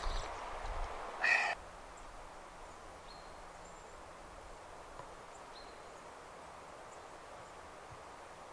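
One short, loud bird call about a second in, then a quiet outdoor background with a few faint, high bird chirps.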